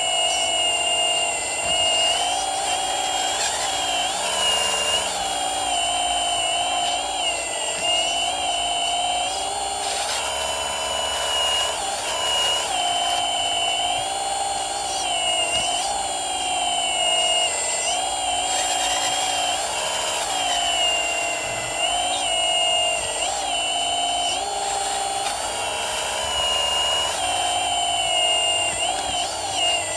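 Small electric motor and hydraulic pump of a radio-controlled model Komatsu PC360 excavator whining, its pitch dipping and rising again and again as the hydraulics are worked.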